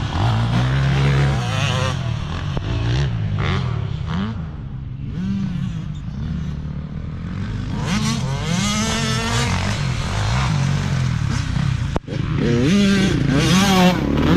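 Dirt bike engine revving up and down while riding a motocross track, its pitch climbing and falling as the rider works the throttle and gears. About twelve seconds in the engine note cuts out for an instant and then comes back.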